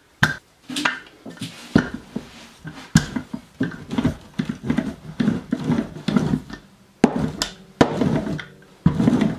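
Wooden rolling pin rolled back and forth over sugar cookie dough on a silicone mat, with repeated knocks and thumps as the pin rides onto the plastic rolling guides either side of the dough.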